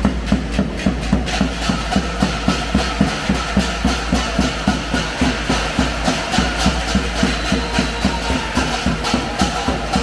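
Davul, the large Turkish double-headed bass drum, beaten with a steady, even beat of about four strokes a second, over music.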